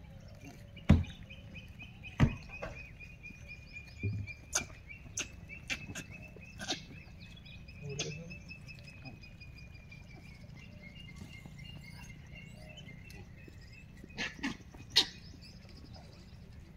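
A steady, high, rapid trill runs through most of it, breaking off briefly past the middle, over scattered sharp knocks and clicks; the loudest knocks come about a second in and again near the end.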